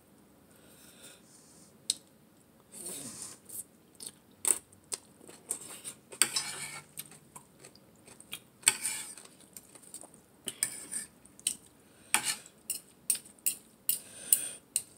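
A metal fork and spoon clinking and scraping against a plate as a shredded carrot salad with glass noodles is tossed and lifted. The sharp clinks come at irregular intervals and grow more frequent in the second half.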